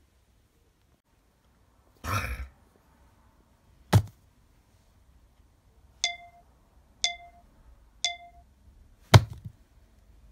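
A short rustling burst, then a sharp knock, then three evenly spaced taps a second apart, each ringing briefly with the same short chime, and a final louder knock: objects struck by hand to make sound effects.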